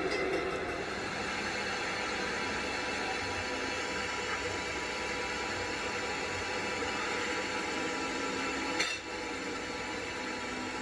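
Lathe friction-welding a splined gear shaft, the spinning chuck and the pieces rubbing under pressure: a steady grinding noise, with a short sharp click about nine seconds in.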